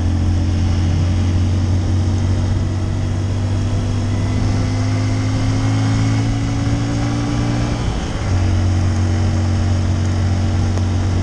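Honda CRF150L's single-cylinder four-stroke engine running under way, its note creeping slowly upward, then breaking off for a moment about eight seconds in before it carries on steadily. Wind hiss on the microphone runs underneath.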